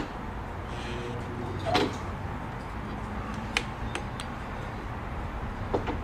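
A low steady hum with a few light clicks; the clearest comes about two seconds in and the others are scattered later.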